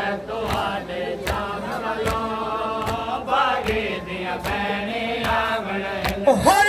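Men chanting a noha together in Punjabi/Saraiki, over a regular beat of sharp hand slaps on the chest (matam). Near the end a single voice rises into a long held note.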